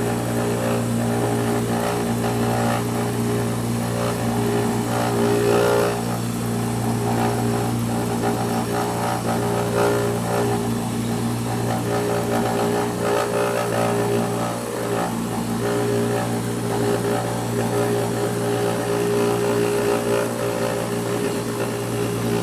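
Manual milling machine running steadily, its end mill cutting through the tube wall as the table is fed by hand: a constant motor hum with an uneven cutting noise over it.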